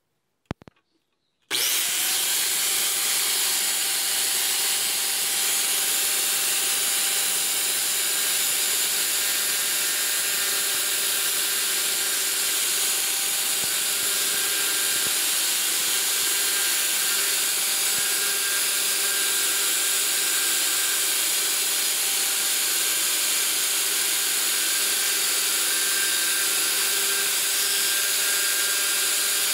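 Bench-mounted angle grinder with a sanding disc starts about a second and a half in and runs steadily with a motor whine, while a wooden knife blank is sanded to shape against the spinning disc.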